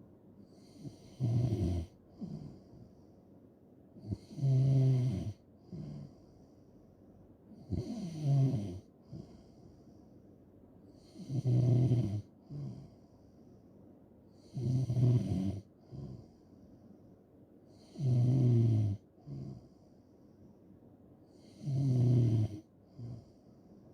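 A person snoring in slow, regular breaths: a loud, low-pitched snore about every three and a half seconds, seven in all, each followed by a short, softer breath.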